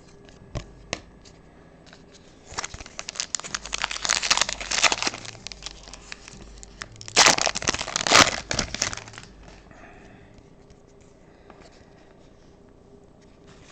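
Crinkly packaging from a box of trading cards being handled, in two stretches of crackling: one from about two and a half seconds in, the other from about seven seconds in. A few light clicks come before them.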